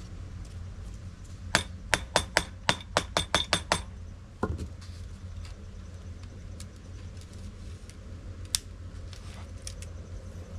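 Hand work on a woven bamboo basket: a quick run of about ten sharp clicking taps over two seconds, then a duller knock and, later, one more click, over a low steady hum.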